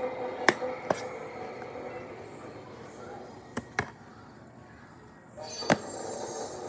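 Sharp clicks over a low, steady background with faint tones: two close together about half a second in, two more near four seconds, and a single one near six seconds.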